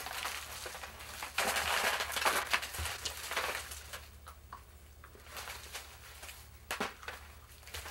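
Rustling and crinkling of plastic Easter grass and wrappers as hands rummage through wicker Easter baskets, loudest in the first half, with a few soft knocks later.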